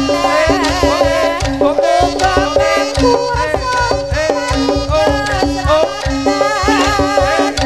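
Live jaranan music played loud through a PA: steady kendang-style hand drumming under a wavering, ornamented lead melody and a held tone.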